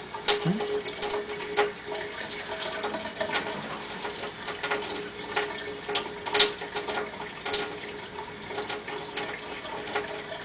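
Kitchen tap running a thin stream into a stainless steel sink, with a steady hum underneath. Scattered short clicks and knocks of hands handling a small glass bottle and its cap.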